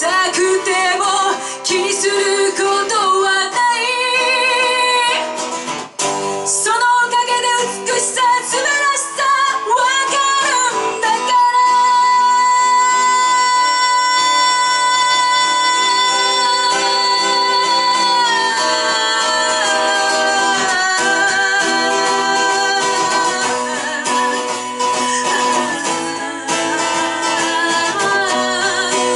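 Rock band playing live: singing over guitar, the voice wavering on held notes, with one note held steady for about seven seconds near the middle.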